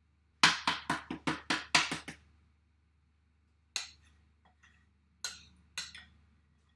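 Knocking on an upturned ceramic mixing bowl to get thick chocolate cake batter out into the tin: a quick run of about seven sharp knocks, roughly four a second, then three single knocks spaced apart.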